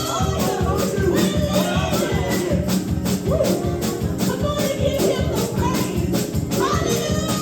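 Live gospel praise-and-worship music: voices singing over a fast, steady percussive beat.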